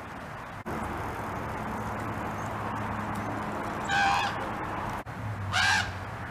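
Juvenile raven giving two loud, harsh screaming calls about a second and a half apart, one about four seconds in and one near the end.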